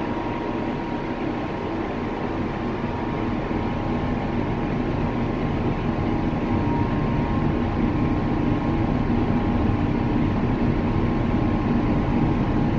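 Steady engine drone and rush of water and air from a ship under way, with a constant low hum. It grows a little louder after a few seconds.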